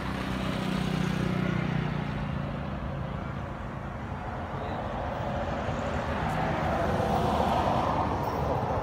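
Motor vehicle running nearby: a low engine hum in the first couple of seconds, then a broad rushing noise that swells near the end.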